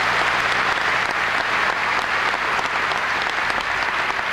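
Large audience applauding steadily: the dense patter of many hands clapping.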